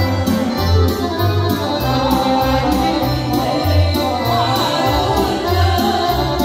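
A small live band playing a song: two women singing into microphones, accompanied by clarinet, a Yamaha electronic keyboard carrying a pulsing bass line, and accordion.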